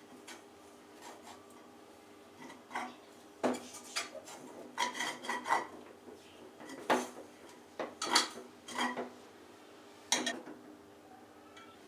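Kitchen utensils knocking and scraping against cookware in irregular strokes, a few ringing briefly, over a faint steady hum.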